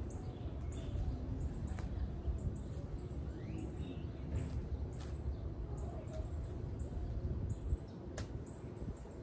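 Small birds chirping, short high notes repeating throughout, over a steady low rumble, with a few sharp knocks.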